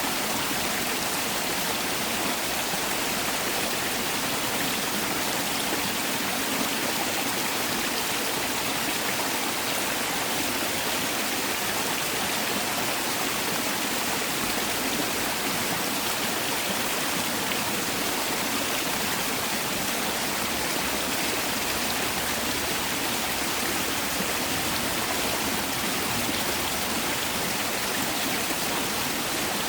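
Mountain valley stream flowing steadily, an even rushing of water over rocks.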